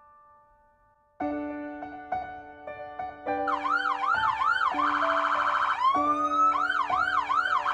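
Ambulance siren switching between modes: a yelp of rapid rising-and-falling sweeps, a fast warble, then a long rising wail and back to the yelp. It comes in about three seconds in, over steady background music.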